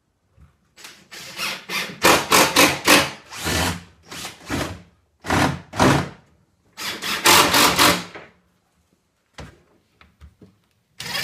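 Cordless drill driving screws in about a dozen short bursts, grouped in runs, fastening small casters to a plywood shop cart. A few faint clicks follow near the end.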